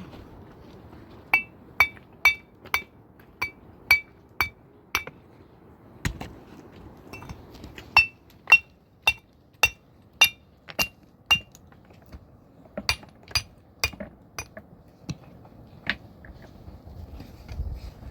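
Hammer striking metal in three runs of steady blows, about two a second, each with a bright ringing clink, the last run growing softer.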